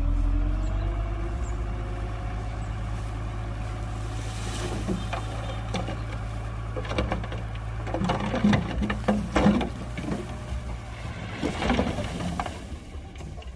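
Heavy diesel engine of earthmoving machinery running steadily, its pitch rising as it revs over the first couple of seconds. Sharp metallic knocks and clanks come in a cluster about halfway through and again near the end.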